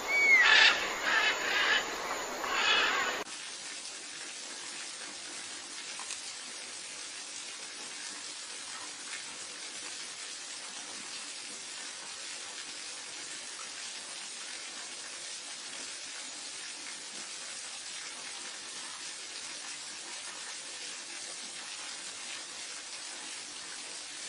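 Birds calling for about three seconds, with chirps and one short rising whistle, then a sudden cut to a steady, even hiss for the rest.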